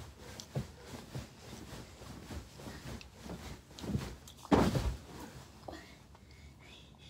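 A few soft knocks and bumps, then a louder, rough thud about four and a half seconds in.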